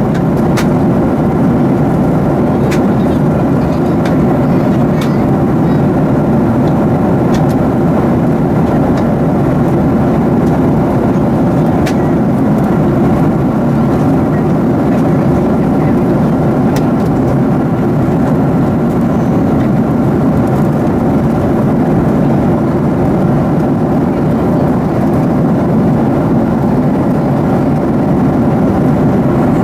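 Steady in-flight noise of a Boeing 737-700 with its CFM56-7B engines, an even drone and airflow rush, with a faint steady whine and a few light clicks.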